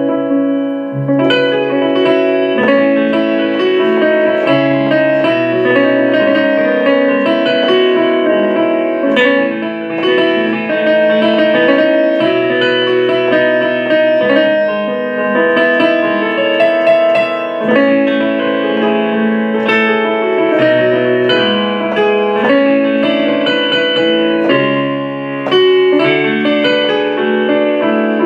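Instrumental music: a keyboard plays chords that change every second or two, with no singing.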